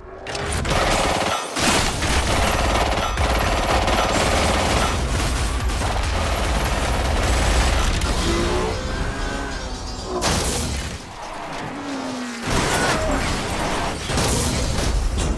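Dense action-film sound mix: rapid gunfire and heavy impacts as a car is hit and crashes into rock, over a music score.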